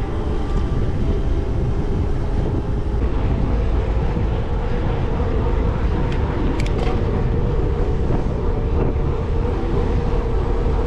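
Riding noise from a Trek Fuel EX 8 mountain bike on a dirt trail: steady wind buffeting the microphone over the rumble of the tyres, with a few sharp rattles around the middle.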